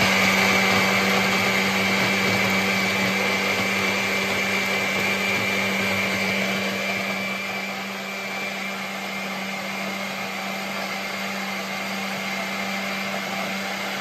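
Countertop electric blender running steadily, its motor humming with a high whine as it purées soft watermelon into juice.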